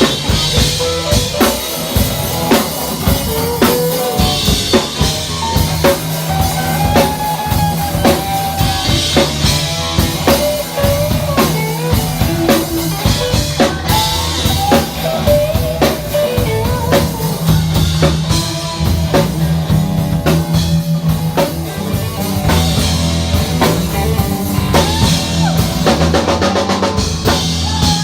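Live funk-rock band playing an instrumental passage: a drum kit with snare and rimshot hits drives a busy beat under a steady bass line, while a lead line slides and bends in pitch over the top.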